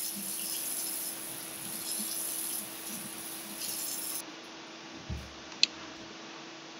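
Tap water running into a stainless steel sink while it is scrubbed with a dish brush, ending abruptly about four seconds in. A dull thump and a sharp click follow as the wooden dish brush is set down in its holder.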